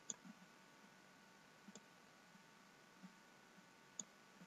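Faint clicking of a computer mouse's left button: three sharp clicks a second or two apart, with a few softer taps between.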